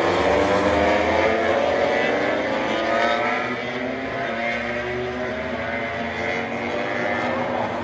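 MotoGP racing motorcycle engines running hard past the corner, their pitch climbing over the first few seconds. They are loudest at the start, then ease off.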